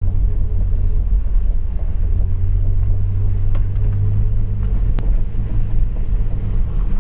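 Classic car driving, heard from inside the cabin as a steady low engine and road drone. One sharp click comes about five seconds in.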